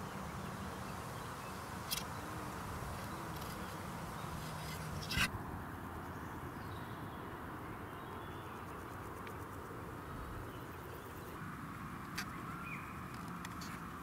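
Meadow ambience: a steady soft outdoor haze with a low hum that comes and goes, and two sharp clicks about two and five seconds in.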